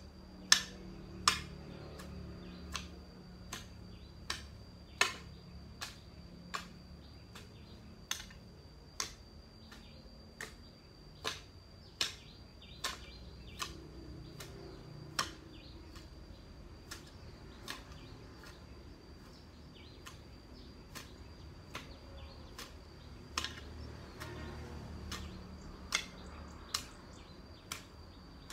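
Hand cutting of tall grass and weeds with a long-handled blade: sharp chopping strokes at a steady pace, about one every three-quarters of a second, some louder than others, over a steady high whine.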